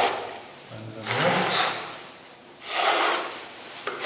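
Flexible steel spatula scraping across setting gypsum plaster on a window reveal in several long strokes, about one a second. It is smoothing out small tear-outs that trimming left in the stiff, fast-setting mix.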